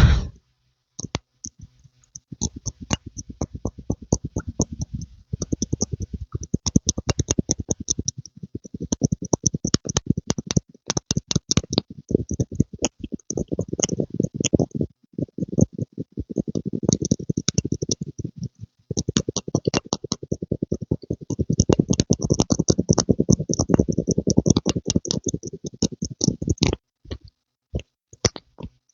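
Close-miked ASMR pumping sounds: fast runs of soft clicks, each with a low thud, in stretches of several seconds with short breaks between.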